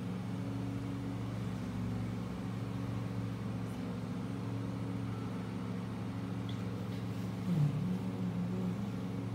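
Steady low machine hum, several even tones held without change, from a motor or appliance running in the room. A brief wavering tone rises out of it about three-quarters of the way through.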